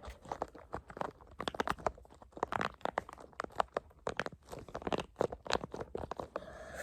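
A fidget toy worked in the hands, giving a fast, irregular crackling and crunching of small clicks.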